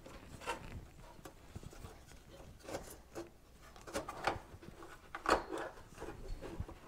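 1968 Ford Torino shifter plate with new spring hold-down clips being fitted down into its console: a few light knocks and clicks with some rubbing. The loudest knocks come about five seconds in.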